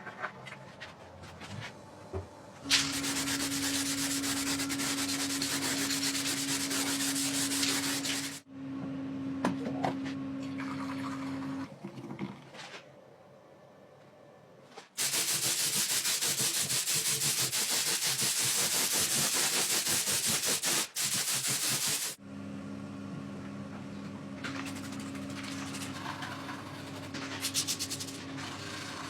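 Power tool sanding the metal of a motorcycle fuel tank in several long runs, a steady motor hum under the abrasive hiss; it stops for a few seconds in the middle, then runs again.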